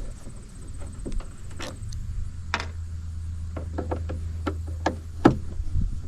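Scattered clicks and knocks of hard parts being handled and tapped while an espresso machine grinder is taken apart, the loudest knock about five seconds in. Under them a low steady hum starts about two seconds in.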